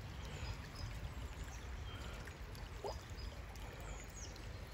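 Shallow creek water trickling steadily over stones, fairly quiet.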